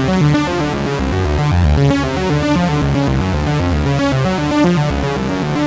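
Home-built breadboard analog synthesizer playing a sawtooth-wave patch: a driving run of fast-changing pitched notes over a strong bass line.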